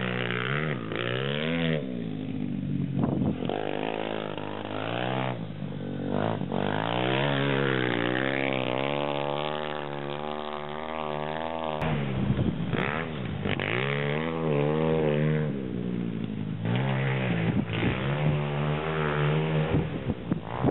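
Pit bike's single-cylinder engine revving up and down as it is ridden, its pitch climbing and dropping again and again with the throttle and gear changes.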